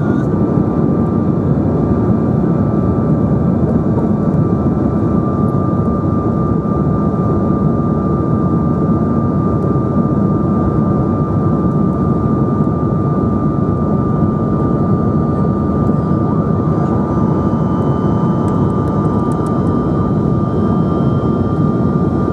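Steady cabin noise inside a Bombardier CRJ900 airliner in flight: the even roar of its rear-mounted General Electric CF34 turbofan engines and the airflow, with a steady high whine running through it.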